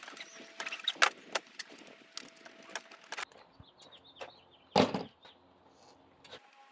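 Scattered light clicks and knocks of tools and an aluminium screen door frame being handled, with one louder clunk just before five seconds in.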